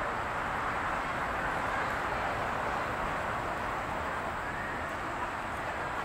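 Steady, even outdoor background noise: a continuous rushing hiss with nothing standing out from it.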